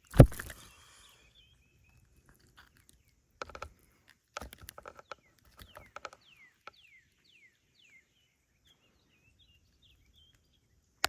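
Outdoor bird calls, a string of short falling whistles repeated throughout. A loud thump comes right at the start, then bursts of clicking and rattling a few seconds in and a sharp click at the end.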